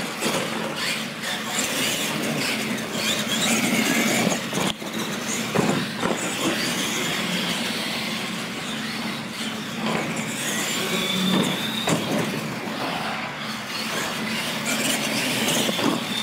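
Electric R/C monster trucks racing flat out on a concrete floor: motors and gears whining, with tyre noise and several sharp knocks as they land off the ramps.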